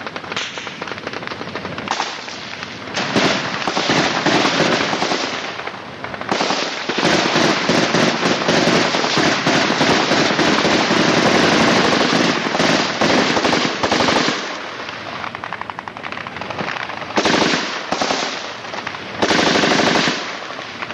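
Automatic gunfire in long, rapid bursts, the longest running about eight seconds through the middle, with shorter bursts near the end.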